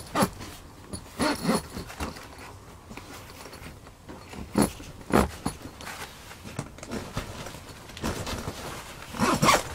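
Irregular rustles, scuffs and knocks of a person moving about on a packed-snow floor inside a fabric ice shelter, with sharper sounds about a second in, around five seconds, and a denser cluster near the end.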